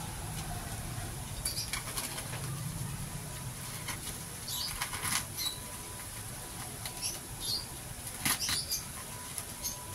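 Plastic mailer bag and bubble wrap rustling and crinkling in short, irregular bursts as hands handle it and slit it open with a box cutter.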